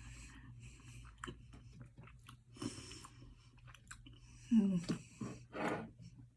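A person chewing food close to the microphone, with soft wet chewing sounds coming in several patches. There are two short vocal sounds from the eater near the end.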